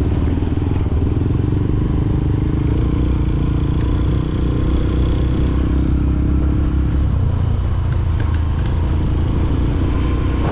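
Dirt bike engine running steadily while riding along a sandy track.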